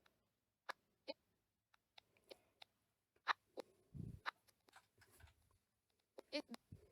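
Near silence broken by faint, scattered clicks and taps from a smartphone being handled and operated by touch, with one soft low thump about four seconds in.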